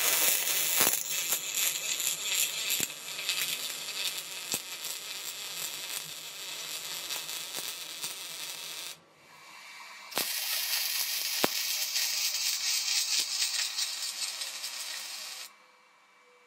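Arc welding steel plate onto a steel pipe: a steady crackling sizzle with sharp little pops, in two runs broken by a pause of about a second just past the middle, stopping shortly before the end.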